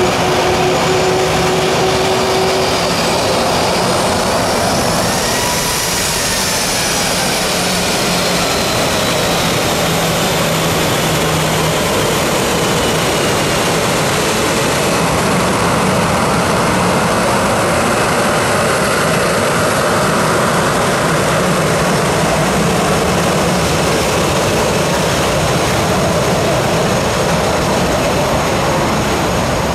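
A Boeing 737-800's two CFM56-7B turbofan engines running at taxi power as the airliner taxis past, giving a steady jet noise. Over it a whine rises in pitch to about six seconds in, then slowly falls as the aircraft moves on.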